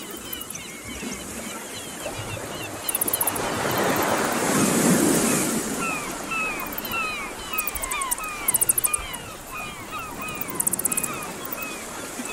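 Surf washing over a rocky shore in slow swells, one surge building about four to five seconds in. Over it a bird calls in a long quick series of short falling chirps, and short bursts of rapid high ticking come three times.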